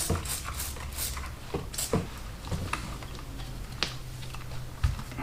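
Hand work on a motorcycle wheel: a quick run of short regular strokes that stops about a second in, then a few separate knocks and clicks of tools and parts being handled, over a low steady hum.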